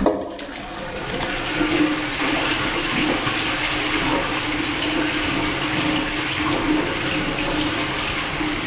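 Toilet flushing: a sharp click at the start, then a steady rush of water that swells about a second and a half in, with a steady low hum under it.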